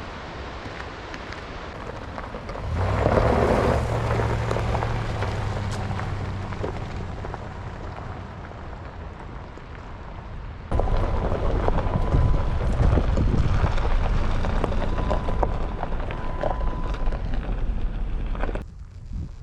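Steady rumbling noise of a moving vehicle with wind buffeting the microphone. A louder low rumble swells about three seconds in and slowly fades. The noise jumps abruptly louder near eleven seconds and drops off sharply near the end.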